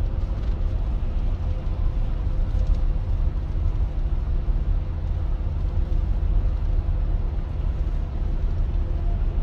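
Steady low road and engine rumble heard inside a moving car's cabin at highway speed, with a faint steady hum over it.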